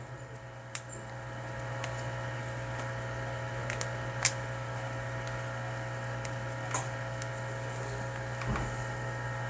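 Steady electrical mains hum from the repair bench, with a few faint light clicks as multimeter probe tips are set on a laptop motherboard.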